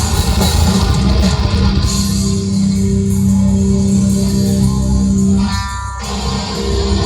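Loud rock music led by electric guitar over bass and drums. Near the end a brief break lets a single ringing guitar chord stand out, then the full band comes back in.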